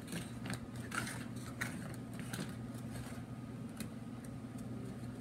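Paper cutouts and tape being handled close to the microphone, with scattered light rustles and clicks over a steady low hum.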